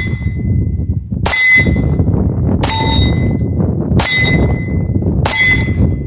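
SIG P226 Legion pistol firing four single shots, about one every 1.3 seconds, each followed by a short metallic ring. Wind rumbles on the microphone throughout.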